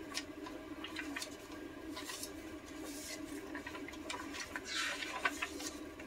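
Paper pages of a handmade junk journal being flipped by hand: a run of soft papery swishes and rustles, the longest and loudest about five seconds in, over a faint steady hum.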